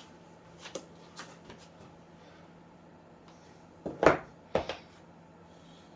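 Hard objects being handled: a few light clicks, then two sharper knocks about four and four and a half seconds in.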